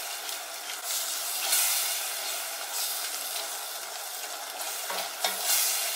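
A black spatula stirring a stainless steel pot of simmering satay sauce: a steady bubbling hiss that swells unevenly with the stirring strokes, as starch thickener is worked in and the sauce thickens.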